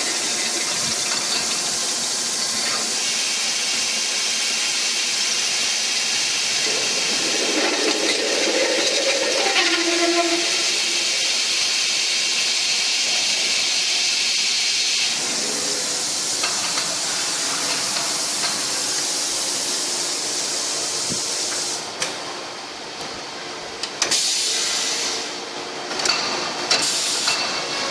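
Steady hissing noise that changes character about halfway through and drops off briefly near the end.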